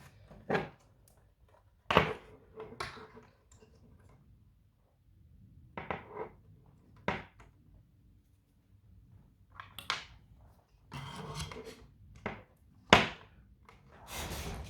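Irregular clicks, taps and knocks of a circuit board, small parts and tools being handled on a workbench, with brief rustling about two-thirds of the way in and at the end. The sharpest knock comes near the end.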